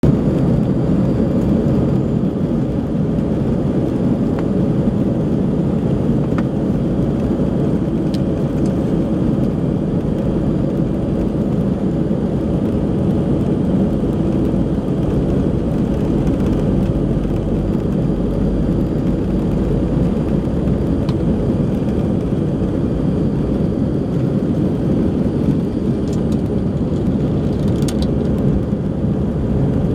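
Airbus A319 cabin noise during the takeoff roll and liftoff, heard from a seat over the wing: the engines at takeoff thrust give a steady, deep, even rush of noise.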